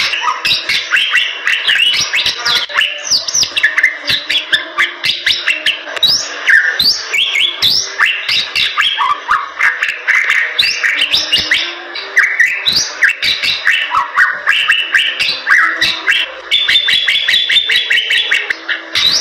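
Bali myna singing without a break: a fast stream of chirps, short whistles and rising notes, mixed with sharp clicks.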